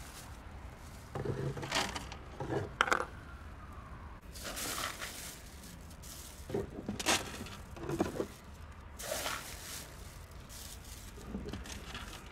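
Dry cat food being poured from a bag into a plastic jerrycan feeder, the kibble rattling and clinking against the plastic in several short bursts.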